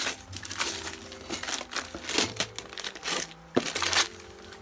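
Gift-wrapping paper being torn and crumpled off a box by hand, in irregular rustling bursts, loudest at the start and again near the end.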